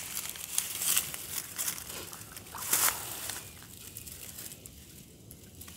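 Dry bankside grass rustling and crackling as a large fish is hauled out of the water onto it by hand, in irregular crackles that are strongest in the first three seconds and quieten after that.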